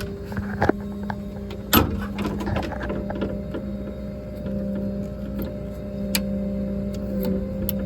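Hydraulic system of a Ford F550 bucket truck running with power on for the bucket: a steady mechanical hum, with a couple of sharp clicks about two and six seconds in.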